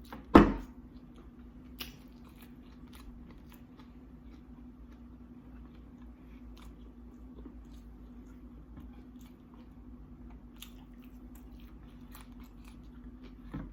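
Close-up chewing and crunching of thin tortilla-chip nachos, with many small crisp clicks. There is a loud thump about half a second in, over a steady low hum.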